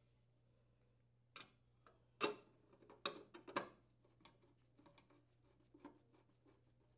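Screw and screwdriver working on the sheet-metal junction box of a Gree PTAC unit: a few sharp metallic clicks and knocks, the loudest about two seconds in, then a run of faint light ticks as the screw is driven.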